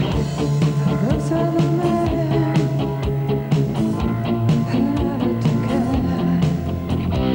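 Rock music with drums and pitched melodic lines.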